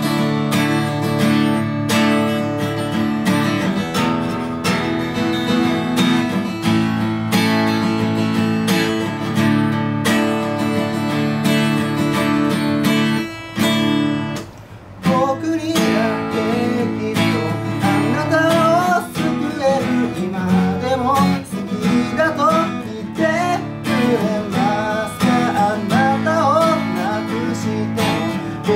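Acoustic guitar strummed in a steady chord pattern. It drops out briefly about halfway through, then a man's singing voice comes in over the guitar.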